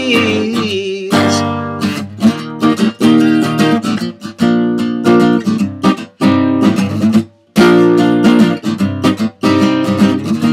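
A man's voice ends a sung line on a held note in the first second. Then an acoustic guitar is strummed in a steady rhythm, with a brief stop about seven seconds in.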